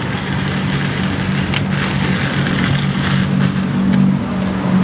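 Riding noise picked up by a camera clamped to a bicycle's handlebar: a steady rush of tyre and wind noise under a steady low hum, with a sharp knock about one and a half seconds in.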